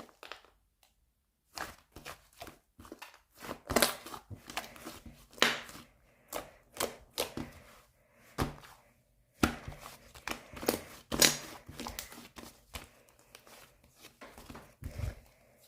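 Purple fluffy clay slime being squished and pulled by hand, making irregular sticky crackles, pops and soft tearing sounds.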